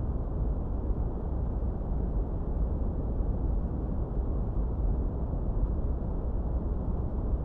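Steady, unchanging generated noise for masking distractions. It is deep and bass-heavy, with little treble, like brown noise.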